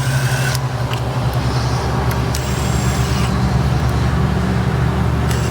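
Steady low mechanical drone, engine-like, with a few faint sharp clicks as the valve cover bolts are tightened down.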